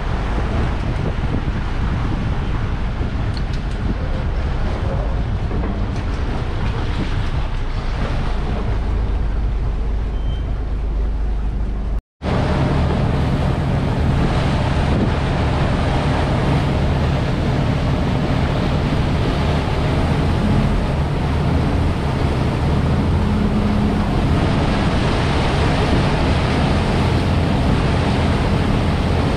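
Chao Phraya express boat under way: its diesel engine drones steadily under the rush of water and wind on the microphone. The sound drops out for an instant about twelve seconds in, then resumes with more water hiss.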